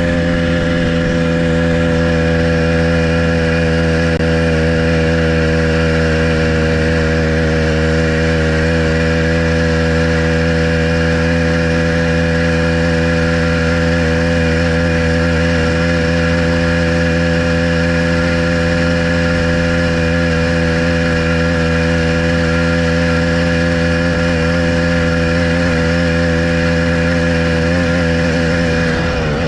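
Motorized bicycle's small engine running at a steady cruising speed, holding a nearly constant pitch.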